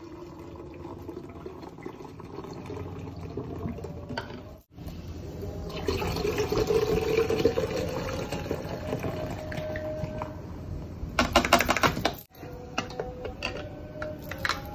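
Carbonated orange soda pouring from plastic bottles into a glass jug, a steady hiss of liquid; about six seconds in the pour grows louder with a tone that slowly rises in pitch as the jug fills. A short run of clicks comes near the end.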